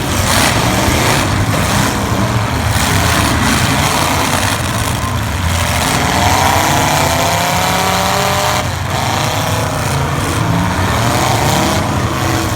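Several V8 demolition derby cars' engines running loud and revving, the pitch climbing and falling repeatedly over a dense low rumble.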